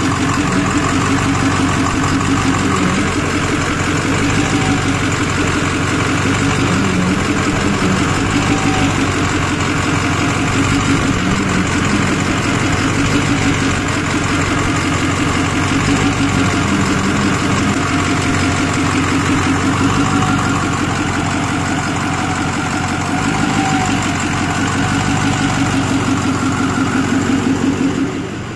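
International VT365 V8 diesel bus engine running steadily at idle. Its level drops away near the end.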